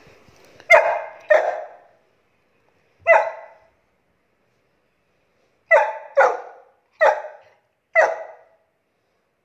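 Saint Bernard puppy barking in play: seven short barks, a pair about a second in, a single one near three seconds, then four in fairly quick succession from about six seconds.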